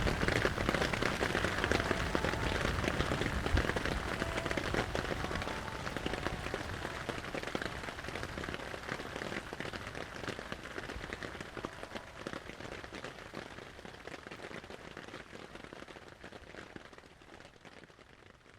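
Heavy rain falling, a dense hiss of many separate drop hits, fading out gradually toward the end.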